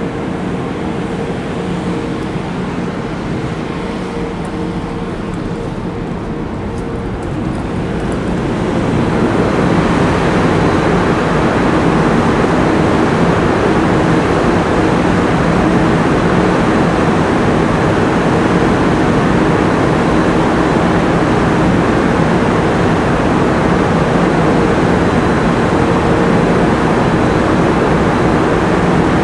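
Steady diesel engine noise from a harbour tug working alongside, with a low hum. It grows louder about nine seconds in and then holds steady.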